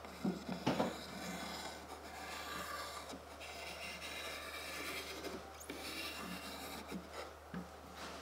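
Glue squeezed from a plastic bottle along the inside edge of a wooden frame, the nozzle rubbing and scraping along the wood. A few light knocks in the first second as the frame is handled.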